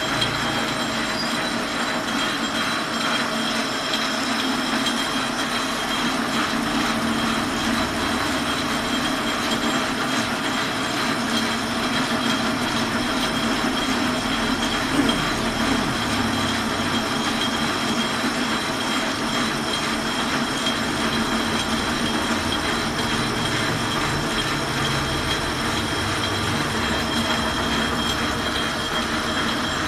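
Geared bench lathe running steadily while turning down a steel bar, its head gearing giving a constant whine of several steady high tones over a continuous metallic running noise.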